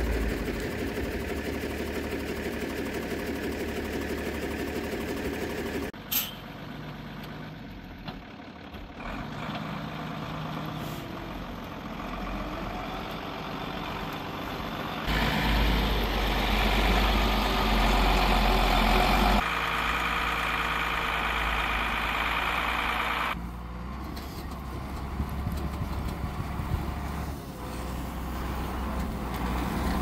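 Vehicle engines heard across several edits: a snowmobile running, then a Mercedes Unimog truck's diesel engine driving through snow on chained tyres, loudest for a few seconds around the middle.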